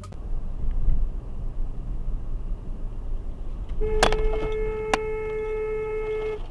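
Car horn held on one steady note for about two and a half seconds, sounding at a van pulling out in front, over the low road and engine rumble of a car driving, heard from inside its cabin. Two sharp clicks come near the horn's start.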